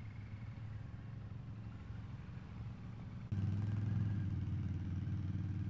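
ATV engines running at a steady low pace, a low drone that gets abruptly louder a little over three seconds in, when a closer group of quad bikes is heard.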